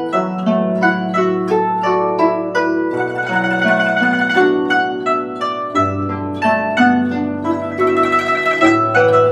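Guzheng music: a melody of quickly plucked, ringing notes over long held low notes.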